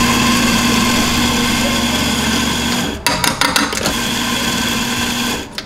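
Electric espresso grinder running, grinding coffee beans straight into a portafilter. A few quick knocks break the steady whir about three seconds in, then it runs on and stops shortly before the end.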